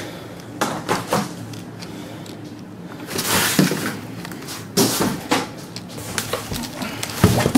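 Cardboard box and packing pieces being handled and moved: a string of knocks and thumps, with a scraping, rustling stretch about three seconds in.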